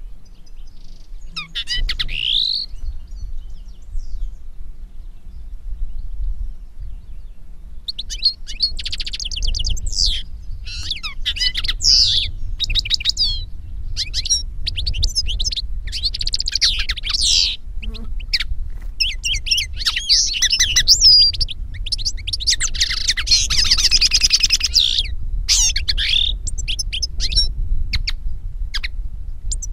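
Finch song from a recorded call track of European goldfinch and common linnet: quick twittering phrases with rapid trills and gliding notes. A short phrase comes near the start, then a pause of several seconds, then almost unbroken twittering from about eight seconds in, over a low hum.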